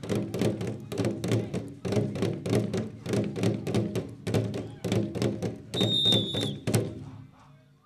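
Two standing drums beaten with sticks in a fast, steady beat for dancers. A shrill whistle sounds briefly about six seconds in, and the drumming stops a moment later.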